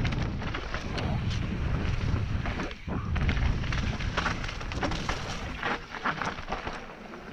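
Mountain bike riding fast down a dirt and gravel trail: wind rumbling on the microphone, tyres crunching over loose stones and the bike clattering and clicking over bumps. The wind rumble is strongest in the first three seconds and eases toward the end.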